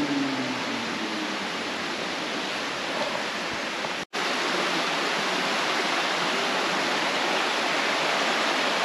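Creek water flowing in a steady rush. About four seconds in it cuts out for an instant and comes back slightly louder.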